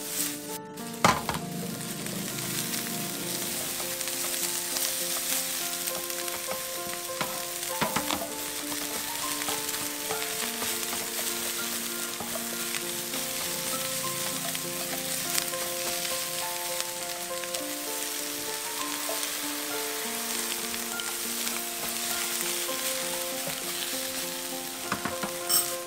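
Shredded cabbage, carrot and egg sizzling on high heat in a wok while being stirred and tossed with a spatula, with a few sharp knocks along the way.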